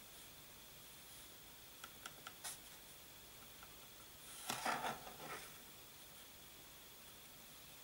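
Pencil marking on the wooden body of a gusli along a wooden ruler: a few light clicks and taps around two seconds in, then a short scratchy pencil stroke about four and a half seconds in.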